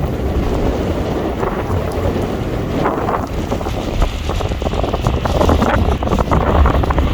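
Strong wind buffeting the microphone in gusts, a loud low rumbling rush that swells and eases.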